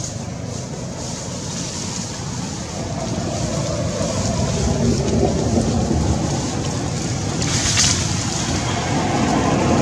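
Wind buffeting the microphone: a rough, fluctuating low rumble that grows louder about three seconds in, with a brief hiss near the end.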